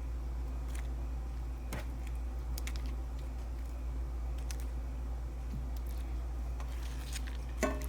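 Scattered light clicks and taps as cooked shrimp are put into a bowl of sauce, about one every second or two, over a steady low hum.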